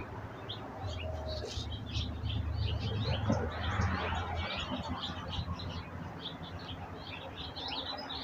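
Many small birds chirping and twittering, a dense run of short high calls throughout. Under them is a low hum that stops suddenly about halfway through.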